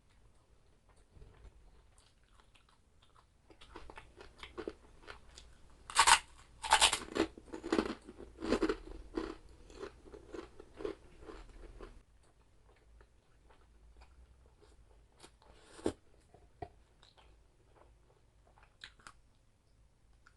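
Close-up crunching bites and chewing of crispy chicharabao (fried carabao-skin cracklings), loudest about six to seven seconds in, then fading to a few scattered small crunches.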